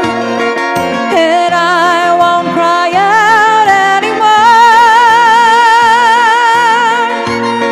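A woman singing with a wide vibrato over a backing track. About four seconds in she holds one long high note for nearly three seconds, the song's closing note.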